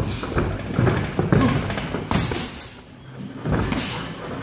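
Bare feet and bodies thudding and shuffling on a padded ring mat during sparring, with irregular knocks and a couple of sharper noisy bursts in the middle.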